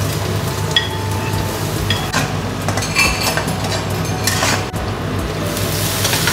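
Metal spatula scraping and clinking against a stainless steel wok during stir-frying, with food sizzling in the pan. The sizzle grows louder near the end as fresh vegetables go into the hot wok.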